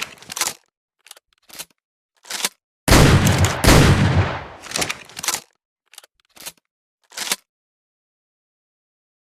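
Double-barrelled shotgun sound effect: a few sharp clicks of the gun being handled, then two loud shots about three-quarters of a second apart, each with a long fading boom, followed by several more separate clicks.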